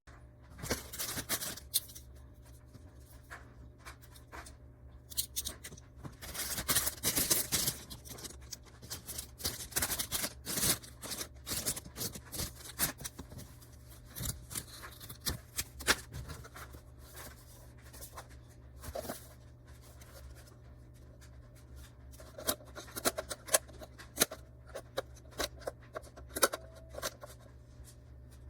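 Handling noises: scattered clicks, scrapes and rustles, some in quick runs, over a low steady hum.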